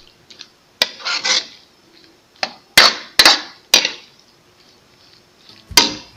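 Spatula scraping and knocking against a wok while stirring guava pieces in coconut milk: a series of sharp scrapes and clanks in the first few seconds, then a pause and one more near the end.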